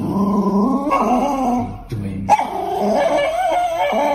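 A small dog making long, wavering whining vocalizations: two drawn-out stretches with a short break about two seconds in.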